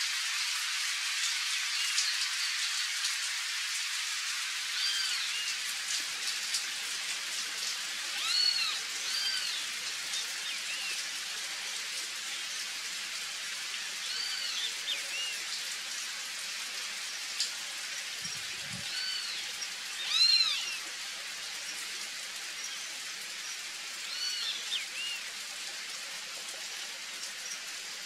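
Steady rain falling on a river's surface and the riverside trees, with a short animal call repeating every few seconds, each note a quick rise and fall in pitch.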